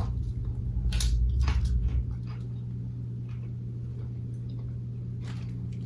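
A person chewing potato chips, with a few sharp crunches and a low rumble in the first two seconds and a couple of faint clicks near the end, over a steady low electrical hum.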